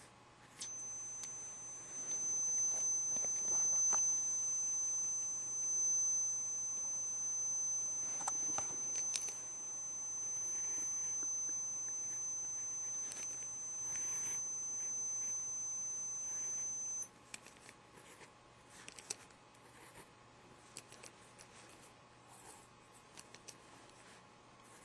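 A steady high-pitched tone comes on about half a second in, holds one unchanging pitch and cuts off suddenly about two-thirds of the way through. Faint scratching of a marker on paper runs under it and continues after it stops.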